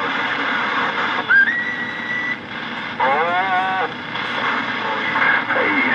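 Radio receiver static: a steady hiss from a CB radio between transmissions. About a second in, a whistle tone rises and then holds steady for about a second. A short warbling tone follows around three seconds in, and garbled voice breaks through near the end.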